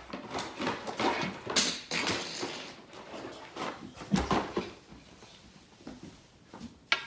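Irregular clicks, taps and rustling of plastic Play-Doh tools and pieces being handled on a tabletop, busier in the first few seconds and sparser toward the end.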